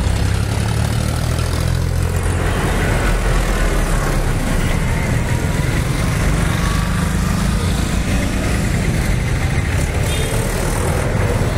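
Motor vehicle engines running amid road traffic: a steady, loud low rumble.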